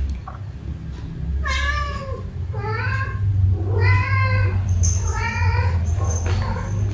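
Domestic cat meowing four times, calls under a second each with the pitch rising and falling, over a low steady hum.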